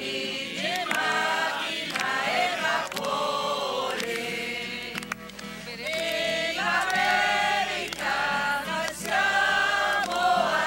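A choir singing in short held phrases, each about a second long with brief breaks between.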